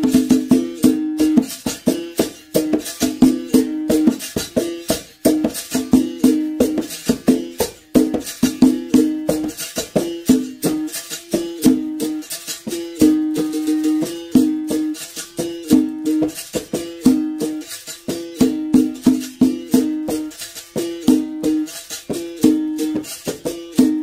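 Berimbau played solo in a quick, even rhythm of stick strikes on the wire, switching back and forth between two notes a little apart, with the caxixi rattle shaking along with each stroke.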